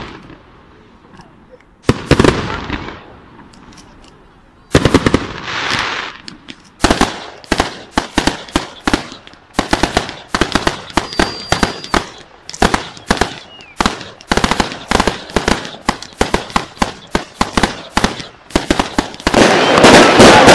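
Fireworks going off: a few single loud bangs, then a fast string of bangs several a second, building into a dense continuous crackling near the end.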